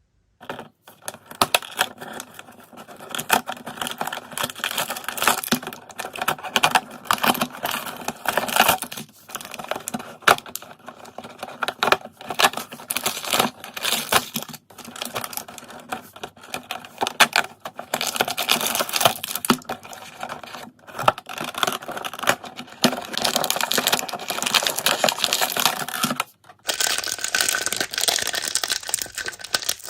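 Fingers opening and handling plastic toy packaging at close range, with dense crinkling, tapping and clicking. It stops briefly near the end, then picks up again with a brighter texture.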